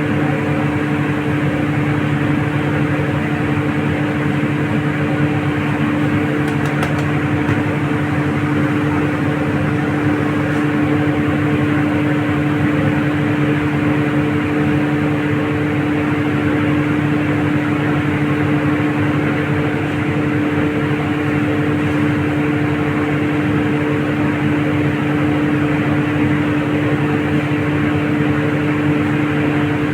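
A fan motor running steadily: a constant hum under a continuous rush of air.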